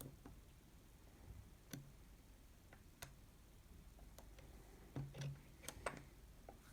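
Faint, scattered clicks from a disc-detainer pick turning the rotating discs inside an Abloy Protec lock, with a cluster of louder clicks about five to six seconds in.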